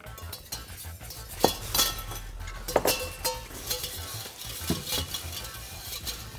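A wooden spoon stirring and scraping a thick white sauce in a non-stick frying pan, with irregular clinks and knocks of utensils and dishes.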